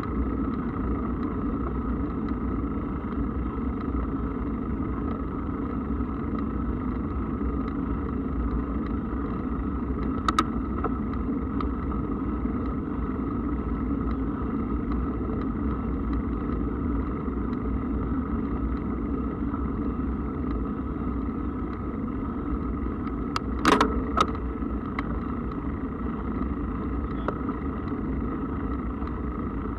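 Mountain bike rolling along at a steady speed: a continuous, even rolling hum, with a sharp click about ten seconds in and a short clatter of knocks near twenty-four seconds.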